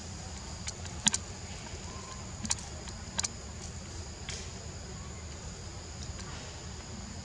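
Steady high-pitched insect drone over a low rumble, broken by a few sharp clicks at about one, two and a half, and three seconds in.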